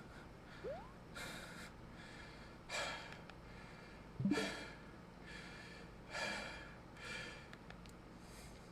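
A series of faint, short breathy exhalations or snorts, about six of them roughly a second apart.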